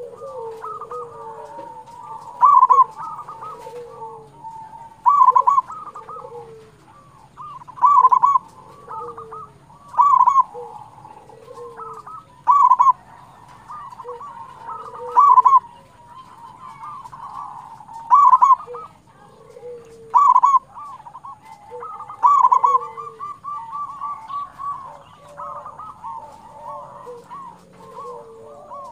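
Zebra dove (perkutut) cooing: loud phrases of quick coo notes come about every two and a half seconds, with softer cooing in between, and the loud phrases stop in the last few seconds while the softer cooing goes on.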